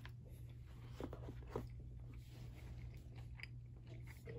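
A person chewing a mouthful of spicy basil-beef fried rice, faint soft mouth sounds, over a steady low hum.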